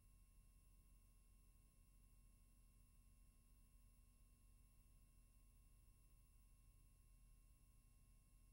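Near silence: a faint, steady hum and hiss with nothing else.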